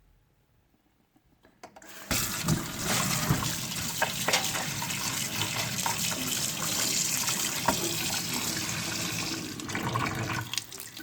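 Water running from a tap starts about two seconds in and runs steadily, with a few knocks mixed in, as a washing machine filter is rinsed under it.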